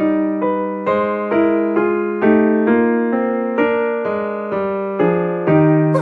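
Background music: an electric piano playing a gentle melody, notes struck about twice a second over low held notes.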